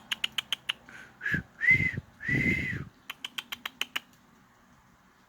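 Three short whistled notes, each rising and falling, with runs of quick clicking sounds before and after them, made to coax a pet bird into whistling.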